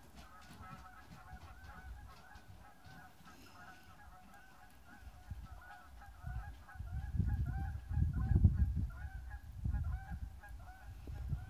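A flock of geese honking steadily, several short calls a second overlapping. From about six seconds in, bursts of low rumble come and go and become the loudest sound.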